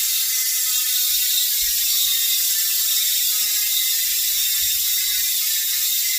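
Spank Hex rear hub's freehub buzzing as the wheel spins freely: the pawls click so fast against the 102-point engagement ring that they blend into one loud, steady ratcheting buzz. Its pitch sinks slowly as the wheel slows.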